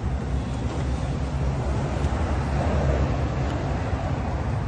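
A steady low mechanical rumble, like a motor or engine running.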